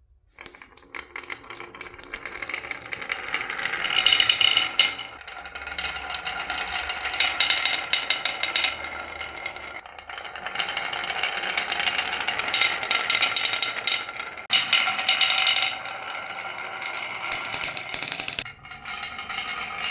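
Marbles rolling and clattering down a plastic marble run, a continuous dense rattle of clicks that swells and eases several times.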